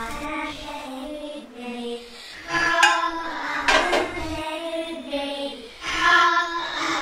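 Background music with a high sung voice holding long notes. Two sharp knocks come near the middle.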